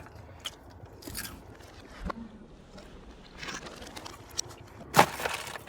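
Close-up eating sounds: crunching and chewing with scattered small clicks, and one sharp click about five seconds in, the loudest sound.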